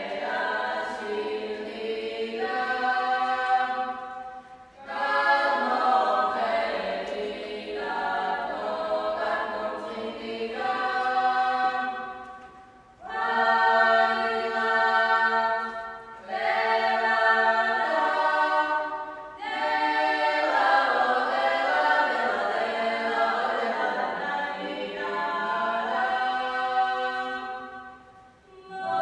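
A small women's folk ensemble singing a Georgian folk song a cappella in several voice parts. The singing comes in phrases broken by short pauses.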